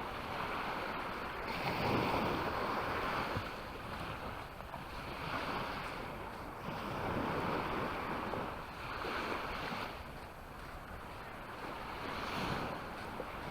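Small Mediterranean waves breaking and washing up the beach, swelling and ebbing every two to three seconds, with wind rumbling on the microphone.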